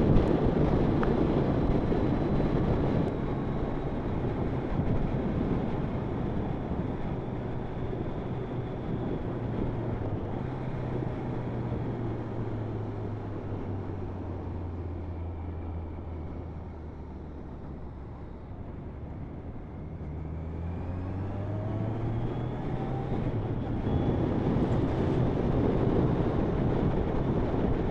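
Motorcycle engine running on the move with wind noise over the microphone. The engine note falls and quietens about halfway through as the bike slows, then climbs again as it picks up speed.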